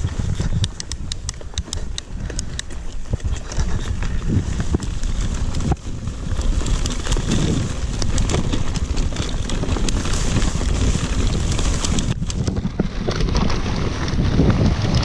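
Mountain bike rolling down through long grass, with wind rumbling on the action camera's microphone and the tyres rushing through the grass. The bike's chain and frame click and rattle over bumps, thickly in the first half, and the ride gets a little louder and faster after about six seconds.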